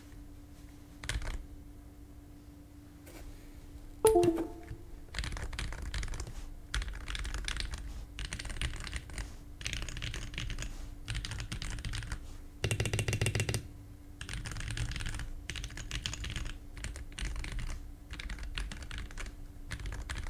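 Typing on a Pulsar PCMK TKL floating-key mechanical keyboard with TaiHao WOB keycaps. A few scattered keystrokes come first, then a sharp knock about four seconds in, then bursts of fast keystrokes with short pauses between them. A faint steady hum sits underneath.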